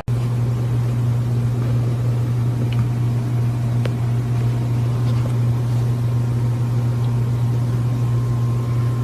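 A loud, steady low mechanical hum or drone that does not change in pitch, with a few faint ticks in the middle.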